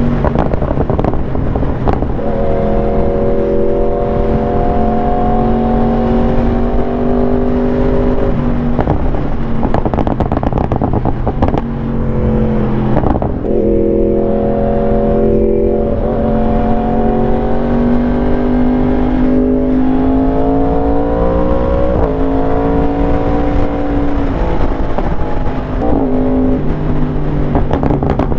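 Yamaha R1 sport bike's inline-four engine running at highway speed, with wind rushing over the microphone. The engine note mostly holds steady, drops and climbs again about halfway through as the throttle is eased off and opened back up, and shifts pitch a couple more times near the end.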